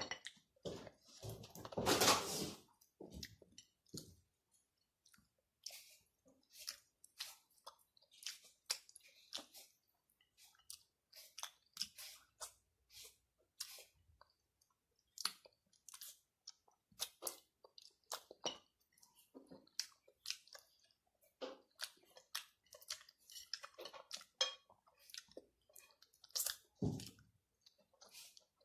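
A person chewing and crunching food: irregular short crackles and wet mouth clicks, with a louder burst about two seconds in.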